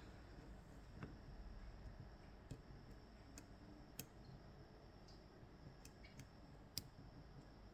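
Faint, scattered metallic clicks of small tools working on an Ezcurra DS-10 pin tumbler lock, about seven in all, over a low steady room hum.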